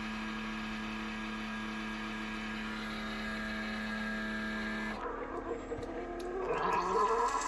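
Keurig coffee maker's pump running with a steady hum as the large-cup brew cycle starts. About five seconds in the sound changes abruptly to an uneven gurgle that grows louder as the hot water begins to flow.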